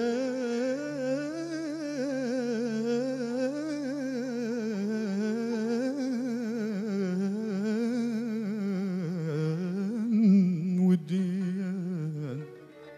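A male voice sings a long wordless melisma of an Arabic mawwal, its pitch wavering and ornamented throughout, over a steady low sustained accompaniment. The held line stops a little before the end.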